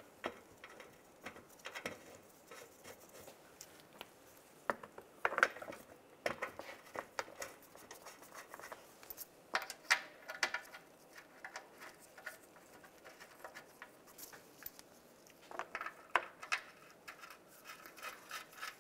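Scattered light clicks, taps and scrapes of hands working an underbody shield panel into place and starting its bolts by hand, with a few louder clusters of knocks about five, ten and sixteen seconds in.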